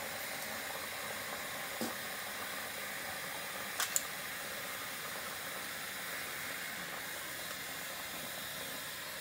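Kitchen faucet running steadily into the sink, an even hiss of water. A soft click a little under two seconds in and a sharper, louder click about four seconds in.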